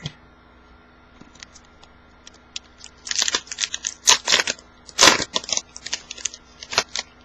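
Foil wrapper of a 2011 Upper Deck football card pack being torn open and crinkled: a few light ticks, then a run of sharp crackling rips and crinkles from about three seconds in.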